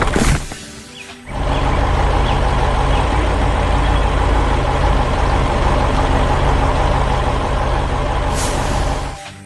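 Tractor engine sound effect running steadily under load, a deep engine note with a broad hiss over it, starting about a second in and dying away near the end.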